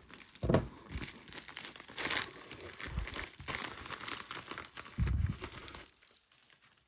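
Packaging crinkling and rustling as it is handled and torn open, with a few louder crackling bursts, settling down near the end.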